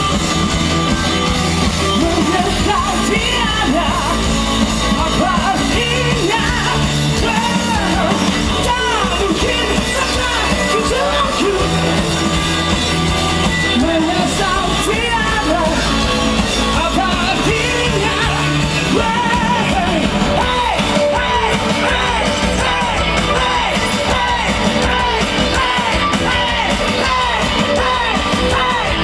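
Rock band playing loudly, with a driving bass and drums under a singer's sung and shouted vocals.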